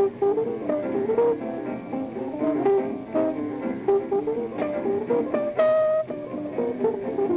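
Jazz trio of electric archtop guitar, double bass and piano playing, with the guitar prominent in a busy line of quick single notes. One note is held briefly about five and a half seconds in.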